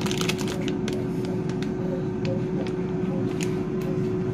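Steady low mechanical hum carrying one constant tone. The plastic bag of dried white beans crinkles in the first half second, with a few light clicks after.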